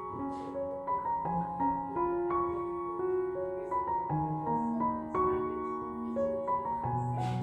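Soft, slow background piano music of held notes, with a brief noisy rustle near the end.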